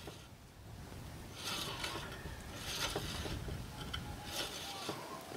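Ryobi 9-inch bandsaw's wheels being turned by hand, the blade running over the wheels and past the guides with a soft rubbing whir that swells with each push, a little over a second apart. This is a hand spin to check the blade tracking.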